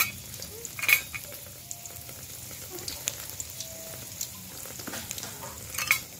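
Food sizzling in a pan: a steady crackling hiss, with two sharp clicks, one about a second in and one near the end.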